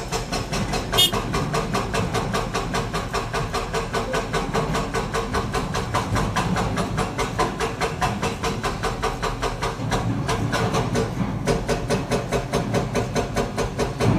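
Caterpillar excavator's diesel engine running under load, with a rapid, even pulsing throughout and one sharp click about a second in.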